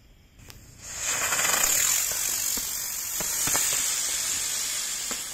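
A small 'big butterfly' children's firework catching and spraying sparks with a loud, steady, high hiss as it lifts into the air, with a few sharp crackles in it. The hiss starts about a second in.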